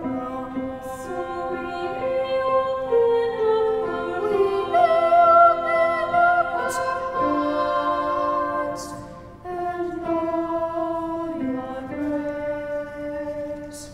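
Vocal trio, two sopranos and a tenor, singing a Christmas song in harmony with grand piano accompaniment. They sing held notes, with a short break between phrases about nine and a half seconds in.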